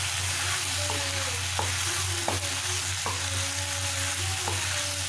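Macaroni and chopped vegetables sizzling in a frying pan while being stirred with a spatula. The spatula scrapes and knocks against the pan several times, about once a second.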